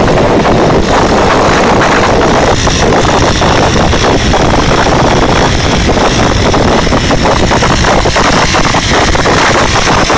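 Motorcycles running at speed on a road, heard as a loud, steady rush of engine and road noise with no clear pitch.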